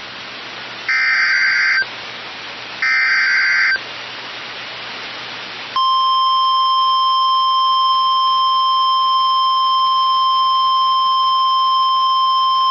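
Emergency alert SAME header: two short screeching data bursts about a second apart, the end of the three-burst header. From about six seconds in comes the steady 1050 Hz weather radio warning alarm tone, which announces that a warning is about to be read.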